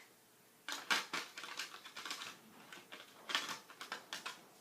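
A series of irregular small clicks and taps, with a little rustling, as items are handled and fitted back into a watercolor set's case.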